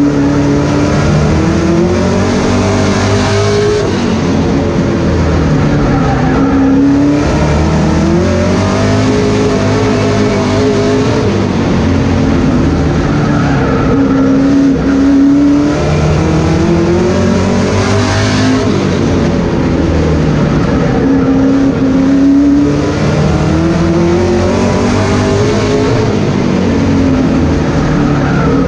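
Stock race car's engine heard from inside the cockpit, revs climbing for several seconds then dropping and holding, over and over about every seven seconds as the car accelerates down each straight and lifts for each turn of the short oval.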